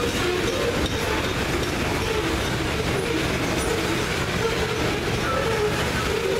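Loaded coal hopper cars of a freight train rolling past: a steady rumble of steel wheels on the rails, with a wavering metallic squeal from the wheels over it.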